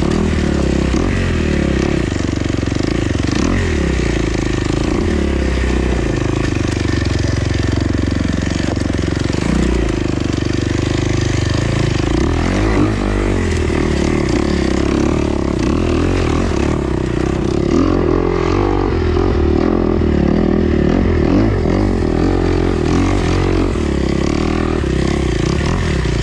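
Off-road dirt bike engine running under riding load, its pitch rising and falling again and again as the throttle opens and closes.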